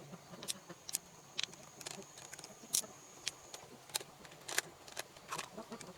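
Irregular sharp clicks and taps of hard objects being handled, about a dozen in all, with a faint high whine for a couple of seconds in the middle.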